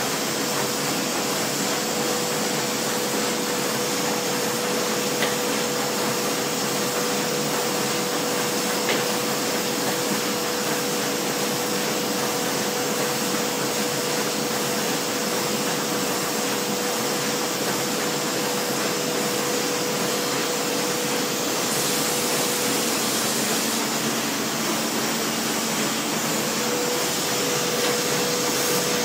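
Foliant roll laminating machine running with sheets feeding through: a steady whirring hiss of motor and fans, with a constant mid-pitched tone running through it.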